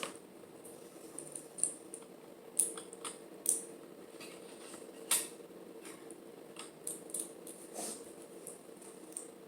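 Lego bricks being handled and pressed together: scattered sharp plastic clicks and taps at uneven moments, over a faint steady hum.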